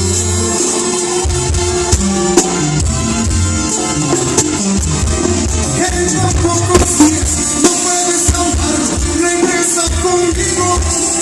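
Live band playing a Latin-style song, with a stepping bass line, percussion and sustained instrument chords.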